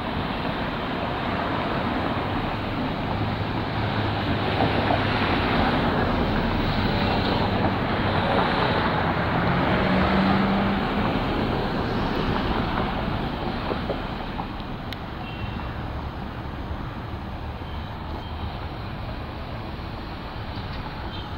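Road traffic passing through an intersection: a steady wash of tyre and engine noise, louder through the first half and easing off after about fourteen seconds.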